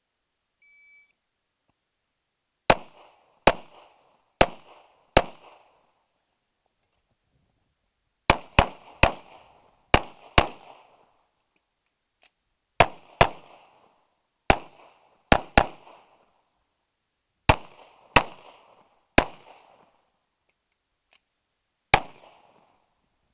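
Shot timer's single start beep, then about eighteen pistol shots fired in quick groups of two to five with short pauses between, the last one alone near the end.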